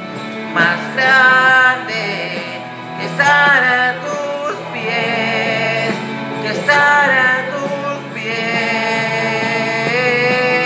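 A man singing a Spanish-language worship song in long held notes over a sustained instrumental backing track.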